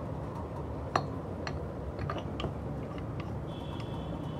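Steel gears and wear plate of a hydraulic gear pump being set into the pump housing by hand: a few light metal clicks, the sharpest about a second in, over a steady low background rumble.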